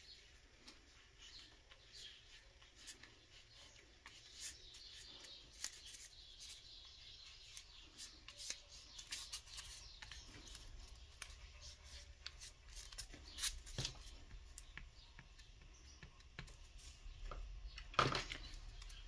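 Faint handling sounds of cold porcelain modelling work: light rustling and scattered small clicks, with one sharper tap near the end.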